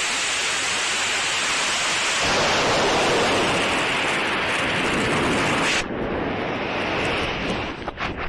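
Estes E12-4 model rocket motor igniting with a sudden loud rushing roar, heard through a camera riding on the rocket, with rushing air as it climbs. About six seconds in the roar cuts off abruptly, leaving uneven, gusting wind noise.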